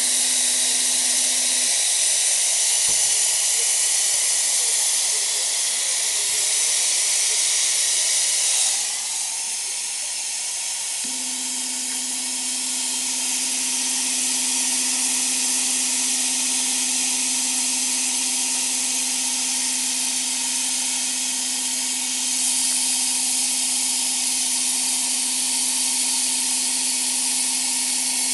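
Compressed-air jet of a gas-dynamic spraying and sandblasting machine hissing steadily as it blasts a rotating steering rack shaft. The hiss eases off in its upper range about nine seconds in. A steady low machine hum drops out about two seconds in and comes back about eleven seconds in.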